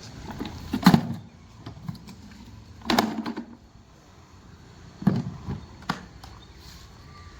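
Four separate hard knocks or clunks, the loudest about a second in and at three seconds, with softer handling noise between them; no motor is running.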